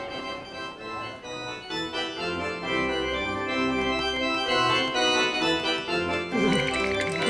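Organ music playing slow, sustained chords over a moving bass line.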